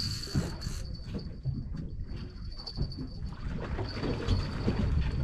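Wind buffeting the microphone and water slapping against the hull of a drifting boat, with a faint steady high-pitched tone underneath.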